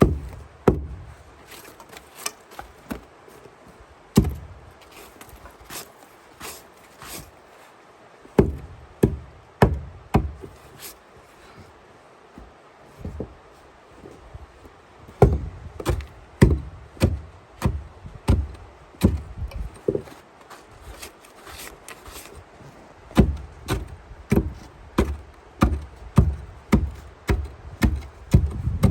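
An ice pick chopping at ice on stairs: a long series of sharp strikes, scattered at first, then a steady run of about two a second in the second half, with a few seconds' pause in the middle.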